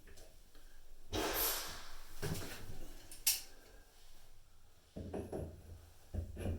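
Hand tools and pipe fittings being handled as channel-lock pliers grip and turn a shower arm. A scraping rustle about a second in is followed by a few sharp metal clicks, the loudest a little past three seconds, then dull knocks near the end.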